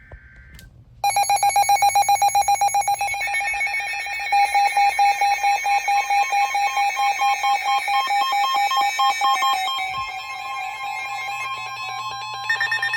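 Weather alert radio alarm going off: a short burst of buzzy data tones, then about a second in a loud, electronic alarm that pulses about four times a second and shifts pitch a few times as it goes on. It is the alert that a severe thunderstorm warning is being broadcast.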